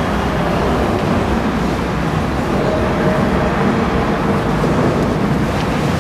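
Motorboat engine running steadily as a small bowrider cruises past, a constant low rumble with water wash.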